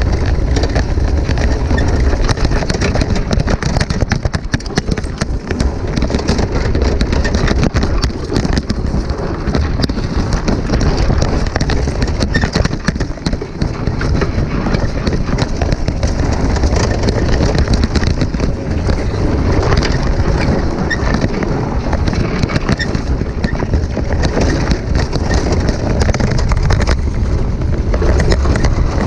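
Unpowered downhill mountain kart running fast over a loose gravel track: a continuous crunching rattle of stones under the wheels and shaking of the kart, with wind buffeting the microphone. No engine is heard.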